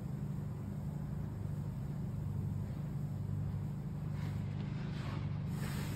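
Steady low hum of background room noise, with faint brief noises near the end.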